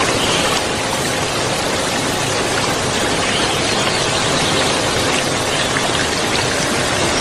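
Petrol brush cutter running steadily as it cuts grass, heard as an even, unbroken hiss.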